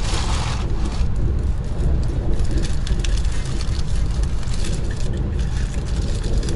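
Running noise inside an ES1P Lastochka electric train, heard through the carriage: a steady low rumble of wheels on rail with light clicks and rattles over it, and a brief rush of noise right at the start.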